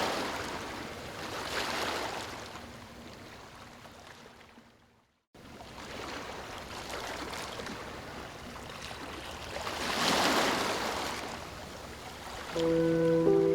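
Ocean waves washing in and drawing back in slow swells. The sound fades to a brief dead silence about five seconds in and then comes back abruptly. Near the end, soft music with long held notes comes in over the waves.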